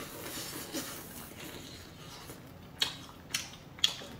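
Chewing a mouthful of crispy fried fish: soft munching, then three sharp crunches about half a second apart near the end.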